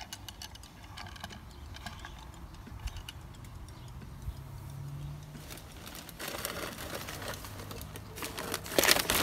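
Faint handling noise of a glazed ceramic planter on a wooden tabletop: scattered light clicks and taps, growing into a louder rustle and scrape near the end as it is gripped and moved.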